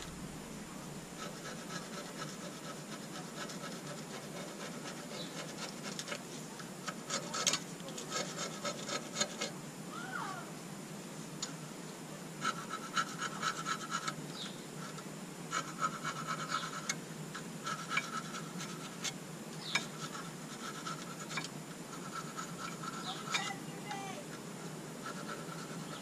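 A hand tool scraping back and forth on the pad sliding surfaces of a Rover 75's front brake caliper carrier, cleaning off rust and grime. The strokes are rapid and come in short runs with pauses between.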